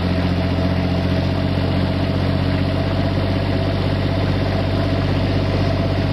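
Small wooden fishing boat's engine running steadily at low speed, an even low hum that does not change in pitch.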